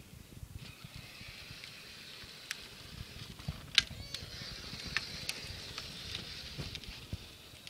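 Battery-powered Power Wheels Jeep Wrangler ride-on toy driving on pavement: its motor and hard plastic wheels make a steady whirring hiss over an uneven low rumble. Several sharp clicks come through, the loudest about four seconds in.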